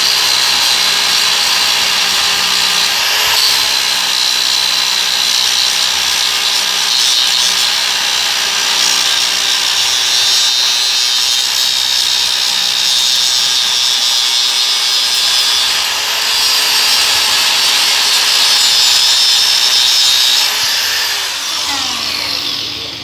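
Electric angle grinder running with an abrasive disc pressed against stainless steel, grinding down a weld on a hollow square tube. Near the end it is switched off and its whine falls away as the disc spins down.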